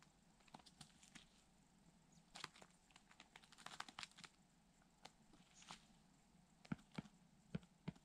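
Bird of prey feeding on a carcass: faint scattered clicks and tearing as it pecks and pulls at the meat, with four sharper knocks near the end.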